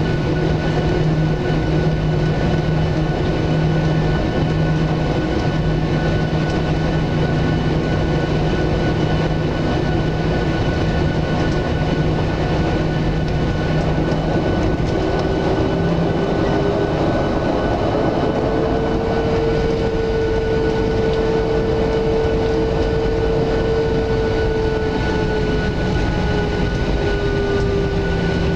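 Steady cabin noise of a Boeing 737-700 taxiing: its CFM56 jet engines running at low thrust with a rolling rumble from the wheels. A tone in the engine sound rises slightly about halfway through and eases back down near the end.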